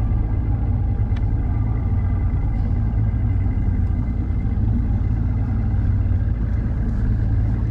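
Fishing boat's engine running steadily under way, a constant low rumble. A brief click about a second in.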